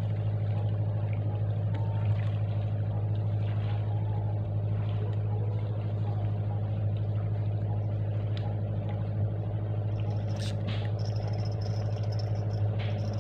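An engine running steadily: a low, even drone with many overtones and no change in pitch, like a boat motor idling on the river. A few light clicks come about ten seconds in.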